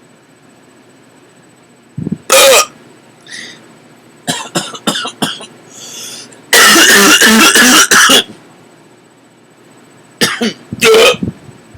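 A person's loud, odd hiccups coming in fits: one about two seconds in, a quick run of short sharp ones a little later, a long one with the voice in it lasting over a second around the middle, and two more near the end.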